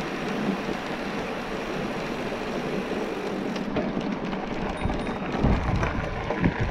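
Bicycle riding noise: a steady rush of tyres and wind on the microphone. About four seconds in it turns to a rougher rumble with scattered knocks as the tyres roll over loose gravel.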